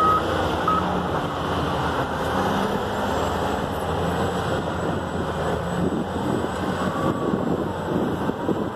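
Bulldozers' diesel engines running steadily as the machines work, with some wind on the microphone. A reversing beep stops just as it begins, and one more short beep sounds under a second in.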